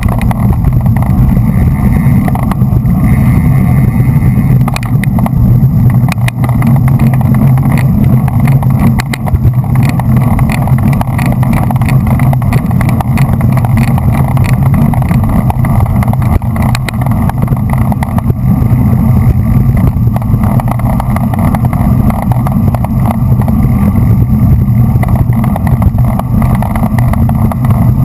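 Wind rushing over a bike-mounted action camera's microphone while riding at race speed in a pack of road cyclists. This is a loud, steady low rumble, with scattered short clicks through the middle of the stretch.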